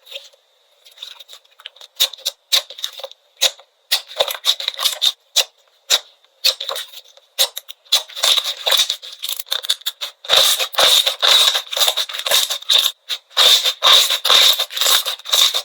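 Slime being squished and stretched by hand, giving rapid crackling pops and clicks, sparse at first and growing denser and louder past the middle.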